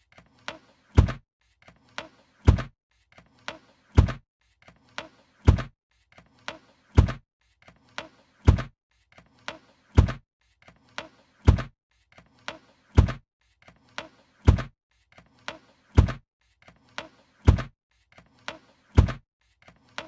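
A suitcase being shut over and over, about every second and a half. Each time, a couple of light clicks come before one loud thump as the lid closes.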